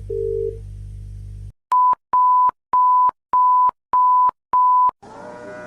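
Electronic tones: a low hum with two short tones that stops about one and a half seconds in, then six evenly spaced, steady high-pitched beeps. A droning musical chord starts near the end.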